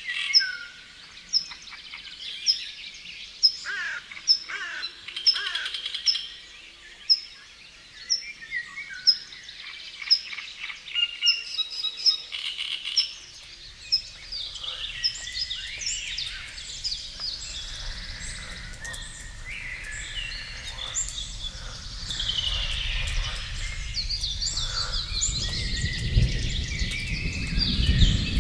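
A chorus of several songbirds singing at once, with one bird repeating a short high note over and over through the first half. From about halfway the song grows denser, and a low rumbling noise rises under it over the last few seconds.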